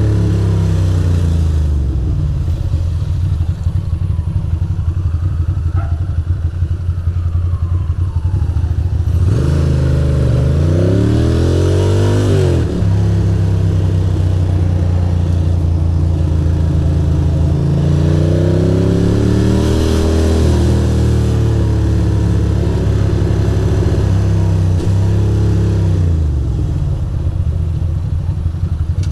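2006 Ducati Monster 620's air-cooled L-twin engine running under way, its revs climbing twice as the bike accelerates, about ten seconds in and again around eighteen seconds in, then falling away near the end as it slows.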